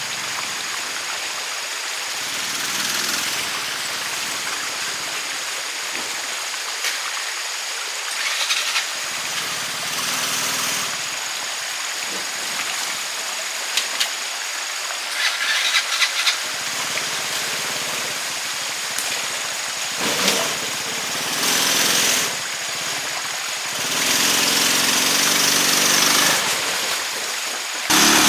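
Repaired motorbike engine running under a steady hiss of wind and road noise, the engine note swelling several times.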